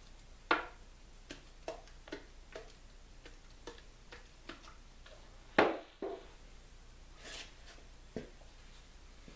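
Metal can of oil finish and a paper shop towel being handled on a wooden workbench: scattered light clicks and knocks, the loudest about five and a half seconds in, with a brief soft rustle of the towel a little later.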